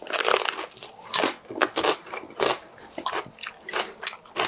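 Close-miked crunching bites and chewing of a raw green chili pepper, irregular crisp crunches about every half second.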